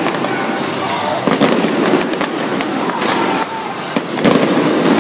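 Aerial fireworks bursting in quick succession: a dense, irregular run of bangs and crackles.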